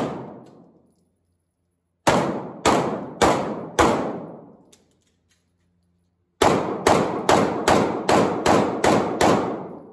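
Glock 17 Gen 5 9 mm pistol firing in a reverberant indoor range: four shots about half a second apart, a pause of about two seconds, then a faster string of about eight shots, each ringing out briefly.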